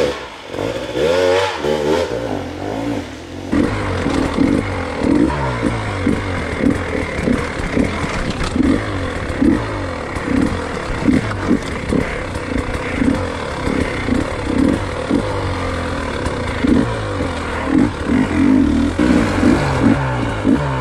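Hard enduro dirt bike engine revving up and down again and again as the throttle is worked over rough ground, with some clatter and scraping.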